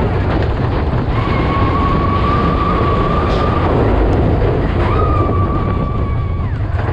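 Mine-train roller coaster rumbling and rattling along its track, with wind on the microphone. A high, steady squeal sounds twice, each time for about two seconds.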